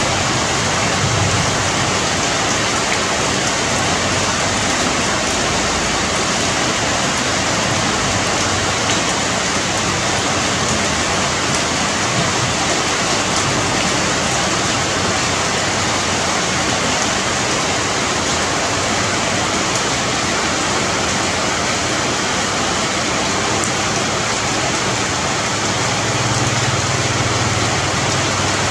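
Steady rain falling on broad tree leaves: a dense, even hiss of drops pattering on foliage, with no let-up.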